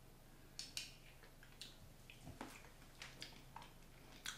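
Faint clicks and scrapes of a metal teaspoon against a glass jar as basil pesto is scooped out, about a dozen small taps spread across the few seconds.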